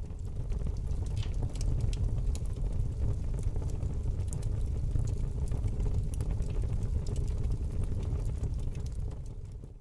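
Fire burning: a steady low rumble of flames with scattered sharp crackles, fading out near the end.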